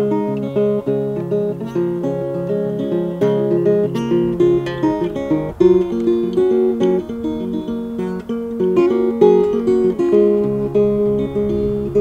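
Levin small-bodied acoustic guitar fingerpicked, a steady instrumental folk passage of plucked notes over low bass strings, played with a capo.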